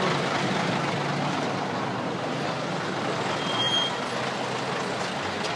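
Steady truck engine and street traffic noise, with one brief high beep a little past halfway.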